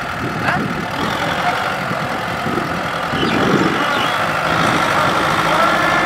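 Diesel engines of a Kubota M6040SU tractor and a Kubota DC70 combine harvester running under load as the tractor pushes the harvester through deep mud, with a steady whine over the engine noise; it grows a little louder about three seconds in.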